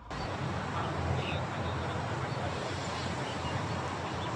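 Steady rushing of a fast-flowing stream swollen by heavy rain.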